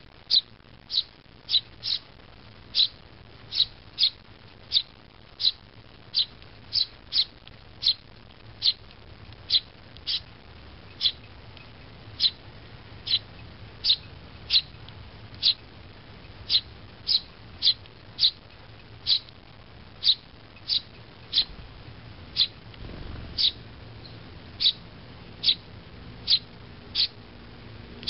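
Eurasian tree sparrow fledgling begging: short, high chirps repeated at a steady pace, about three every two seconds.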